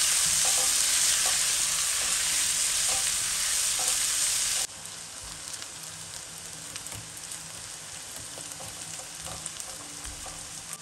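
Diced eggplant, bell pepper, tomato and onion sizzling in hot oil in a nonstick wok, stirred with a silicone spatula. The sizzle drops suddenly to a much quieter level a little under halfway through.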